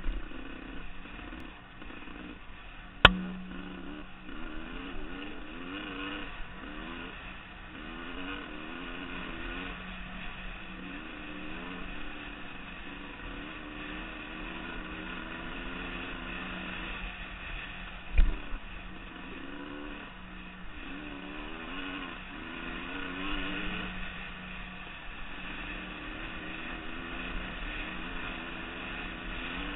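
Dirt bike engine running while riding, its pitch rising and falling as the throttle is worked. Two sharp knocks stand out, about three seconds in and again around eighteen seconds in.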